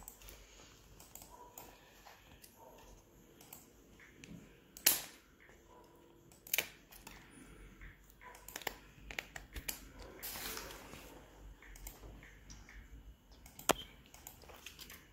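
Scissors cutting through a taped bundle of plastic drinking straws: several sharp snaps as the blades close, the loudest about five seconds in, shortly after and near the end, with soft rustling of the straws and paper between.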